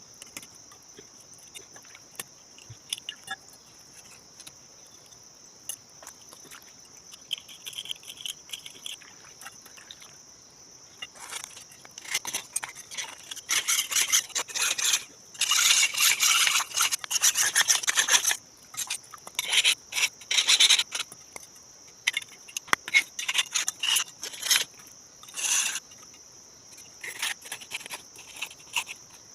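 Rusty khukuri blade being rubbed back and forth on a stone to grind off the rust, in quick rasping strokes that come in bursts and are loudest in the middle. A steady high chirping of crickets runs underneath.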